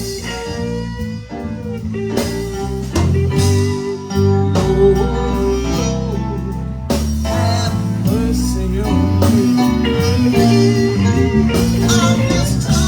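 Live blues band playing an instrumental passage in a slow blues: guitar lead lines with bent notes over a walking bass and drums.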